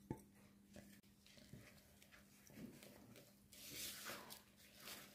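Very faint kitchen handling sounds over a low steady hum: a few light knocks as chopped nuts are tipped from a glass bowl into a plastic mixing bowl, then, about three and a half seconds in, a soft scraping rustle of a spatula stirring the ground nuts into the batter.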